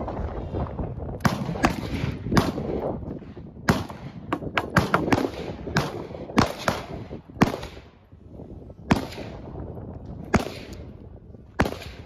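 Gunshots at a shooting range: a dozen or more sharp reports at irregular intervals, with several coming in a quick cluster around the middle, from more than one gun firing.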